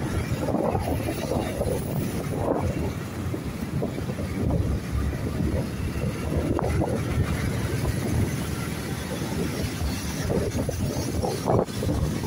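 Road travel noise from a moving vehicle in traffic, with wind buffeting the microphone: a steady rumble that swells and dips.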